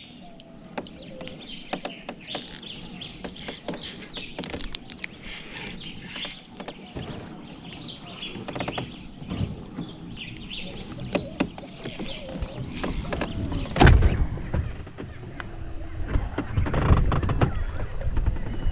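Irregular clicks and knocks from a spinning reel and rod being worked from a kayak while fighting a fish, with faint bird chirps. A sharp knock comes about 14 seconds in, after which the sound turns duller and a low rumble with thumps grows louder.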